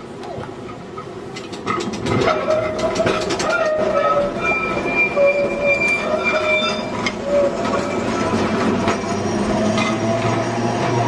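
A London electric tram running along its track: its steel wheels squeal in several steady tones, over clatter and clicks from the rails. It gets louder about two seconds in, and a low hum comes in near the end.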